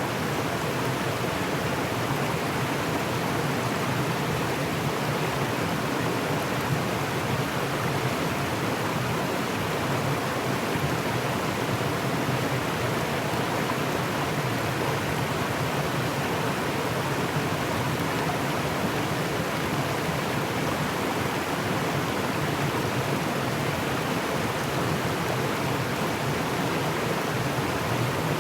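Mountain stream rushing and splashing over rocks, a steady, even rush of water.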